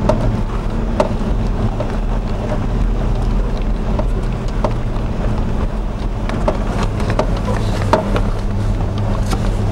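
Vehicle engine running with a steady low hum, heard from inside the cabin while driving slowly over a snow-covered road, with scattered knocks and rattles.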